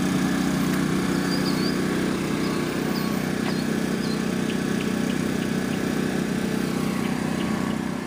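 Champion 2800-watt inverter generator running steadily with no load, an even engine hum.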